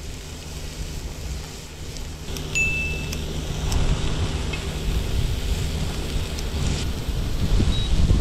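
Slices of beef sizzling on a hot tabletop griddle, the sizzle growing louder from about two and a half seconds in as more meat goes on, with a brief metallic clink of tongs against the pan. A steady low hum and an uneven low rumble run underneath.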